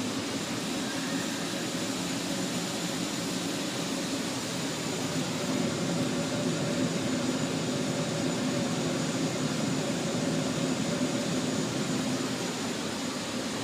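Central air conditioning system running: a steady rush of fan and moving air over a low, even hum.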